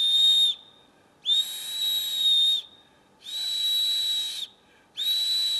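Small survival whistle from a camping knife's kit, blown in repeated long blasts of a second or so each, one steady high note with an airy hiss, short gaps between them. A thin, feeble signal whistle, its note a 'dying' whistle.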